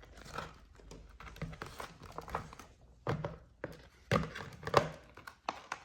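Scissors snipping at a tough plastic packet, with crinkling of the packaging and a few handling knocks, irregular and stop-start.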